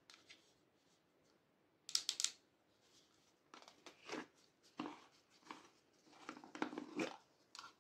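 Soft plastic squeeze bottle being handled and squeezed in the hands: irregular short crinkling, crackling bursts of the plastic, the loudest cluster about two seconds in and a run of smaller ones after.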